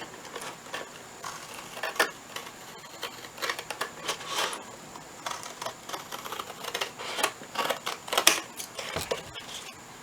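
Scissors cutting through a thin cardboard box along a drawn line: a series of irregular snips and crunches.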